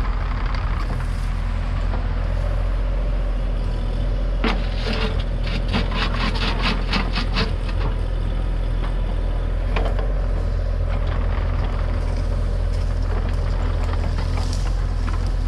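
Mini excavator's diesel engine running steadily, with a quick run of metallic clanks, about three a second, starting about four seconds in, and a single clank near ten seconds.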